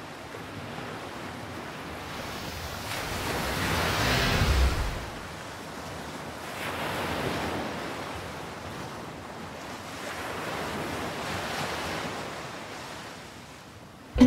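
Ocean surf: waves washing in and drawing back, three swells of rushing water, the first the loudest.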